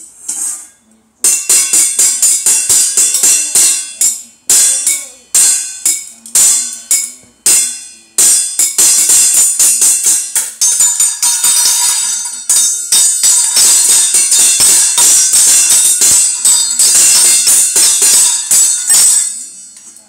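Sticks drumming fast and unevenly on stainless steel pots and a rice cooker's metal inner pot: bright, ringing metallic clanging in runs with short breaks. It starts about a second in and stops shortly before the end.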